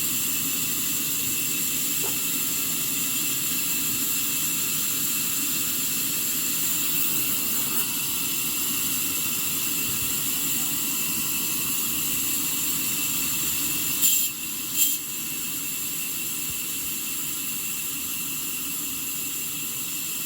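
Sawmill machinery running steadily with a constant high hiss, and two sharp knocks about two-thirds of the way through.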